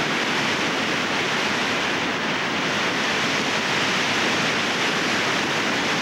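Steady rush of whitewater rapids, an even, unbroken hiss of churning water.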